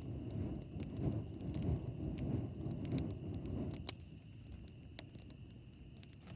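Campfire crackling, with scattered sharp pops over a low rumbling noise that drops away about four seconds in; a faint steady high tone runs underneath.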